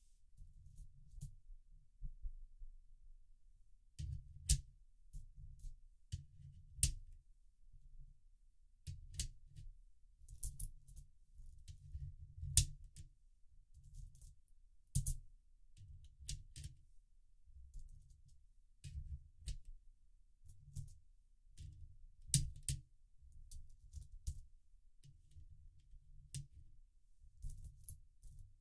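Coins dropped one by one into the plastic hopper of a 3D-printed coin sorter, each landing as a sharp clink on plastic and on the coins already there, irregularly about every second. Between them, soft low thumps and rubbing of fingers gathering coins off a towel.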